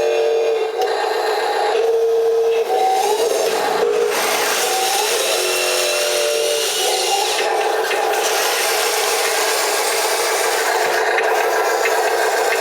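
Wheel loader working steadily while moving sand: a continuous mechanical whine and grinding whose pitch steps and glides up and down as it drives and works.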